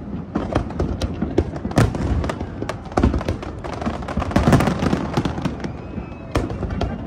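Fireworks display: aerial shells bursting in quick succession, a dense string of sharp bangs over continuous crackling.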